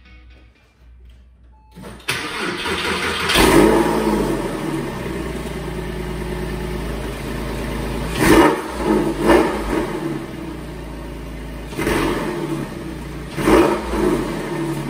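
Porsche 911 (996) flat-six engine, breathing through newly fitted Soul Performance sport catalytic converters and Fabspeed mufflers, cranked by the starter about two seconds in. It catches with a rev flare, settles into a steady idle, then takes five short throttle blips over the last seven seconds.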